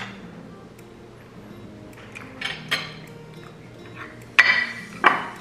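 Metal spoons and forks clinking and scraping against ceramic plates and a baking dish during a meal: a few scattered clinks, the loudest cluster about four and a half seconds in.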